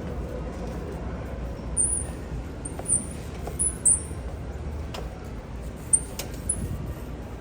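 Steady low hum of a large store, with a scattering of short, very high-pitched chirps or squeaks and a couple of faint clicks.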